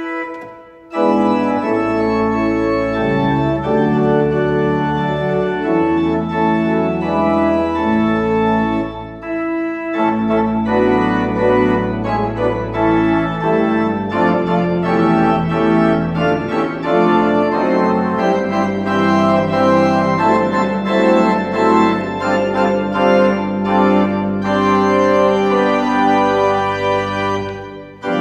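Three-manual church organ playing sustained chords over a deep pedal bass, with brief breaks between phrases about a second in and again about nine seconds in.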